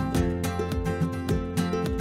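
Background music with a quick, steady rhythm of plucked strings.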